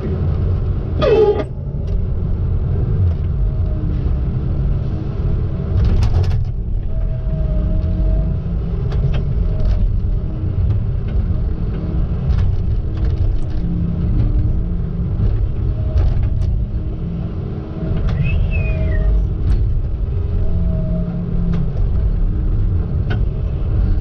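Tigercat knuckleboom loader's diesel engine running with a steady low rumble. A whine comes and goes over it as the hydraulic boom and grapple are worked, with a few sharp knocks.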